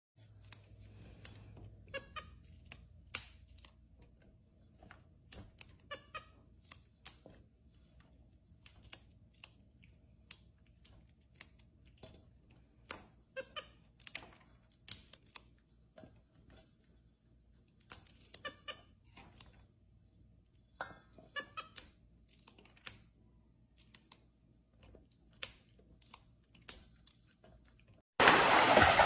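Fresh green beans being snapped by hand, an irregular run of crisp snaps and light clicks. Near the end it cuts suddenly to a much louder steady noise.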